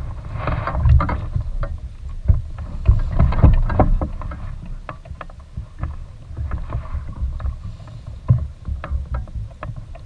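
Water sloshing and splashing against a float tube close by, with many short knocks and ticks and a low rumble, busiest in the first few seconds.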